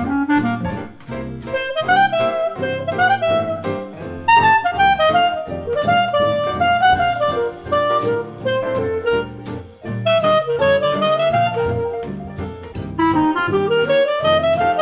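Jazz music with a reedy wind-instrument melody over a steady beat.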